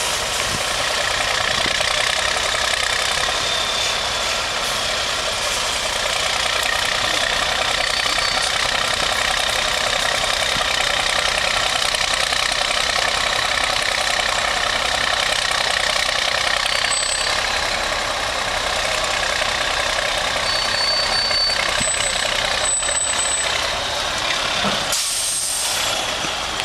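Diesel engine of an eight-wheeled MAN trial truck running steadily under load as the truck crawls over a steep dirt mound. A few brief high tones sound in the second half.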